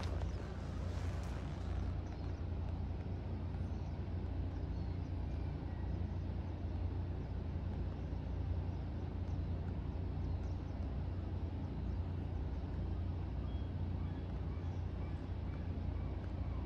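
A steady low engine drone with no change in pitch or level.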